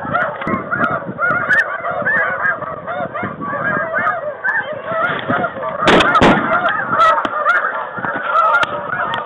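Large flock of snow geese calling, many short honks overlapping without a break. About six seconds in, two sharp shotgun shots in quick succession cut through the calling.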